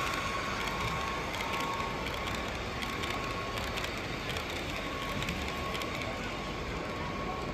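Model freight train rolling past close by, its wheels making rapid, irregular clicking over the track.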